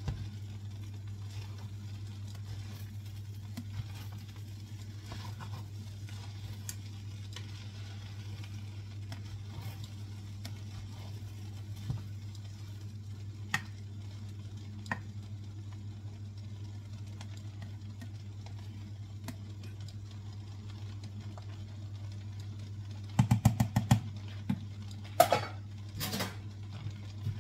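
A spatula stirring and scraping fried rice around a nonstick pot, with scattered soft clicks over a steady low hum. Near the end comes a short run of loud clattering knocks.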